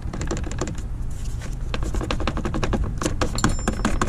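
Plastic coolant reservoir of a Subaru WRX clicking and rattling in rapid, irregular taps as it is jiggled by hand, over a steady low engine hum. This is checked as a possible source of the car's rattle.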